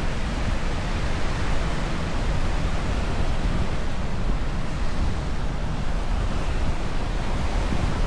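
Steady wash of ocean surf breaking on a beach, with wind buffeting the microphone as a low rumble.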